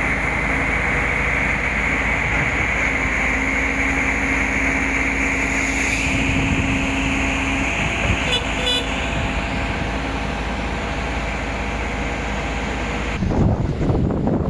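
A concrete pouring machine running steadily, a loud machine drone with a high whine through it. Near the end the sound turns to wind buffeting the microphone.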